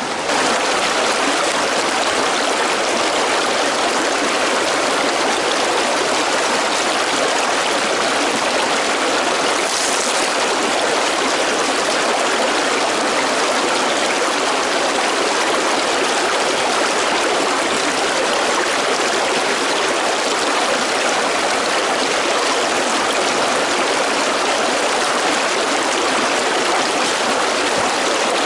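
Small woodland creek running and splashing over rocks and little cascades, a steady rush of water.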